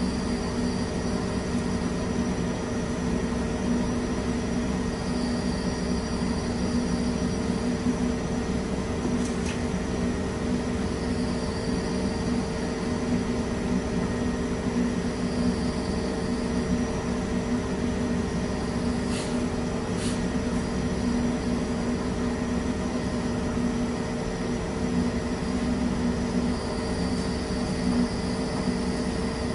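Steady mechanical drone of a laboratory fire-test rig running, with a constant low hum. Three faint sharp ticks come about ten and twenty seconds in.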